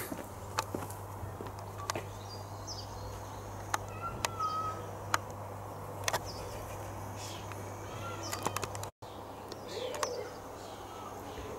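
Birds chirping on and off, over a steady low hum and a scattered few light clicks. The sound drops out for an instant about nine seconds in.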